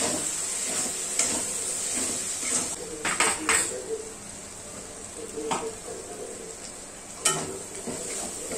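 Onion-and-spice masala sizzling in oil in a metal kadhai while a spatula stirs it, scraping and knocking against the pan. The knocks come three times in quick succession about three seconds in, again once midway, and loudest once near the end.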